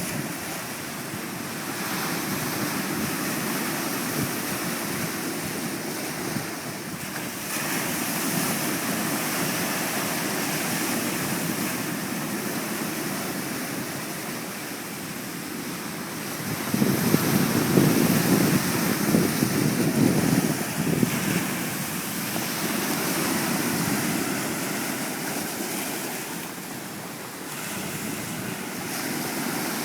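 Sea waves washing against the shore without a break, with wind buffeting the microphone. A louder, rumbling surge comes about halfway through.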